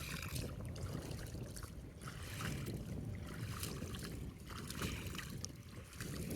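Faint river water sloshing and trickling over a low, uneven rumble of wind on the microphone.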